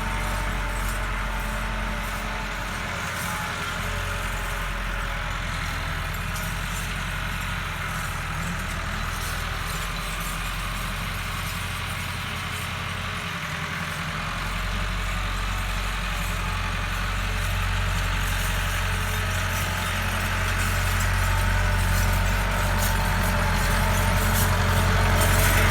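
Steady low engine drone like an idling tractor, growing a little louder over the last several seconds.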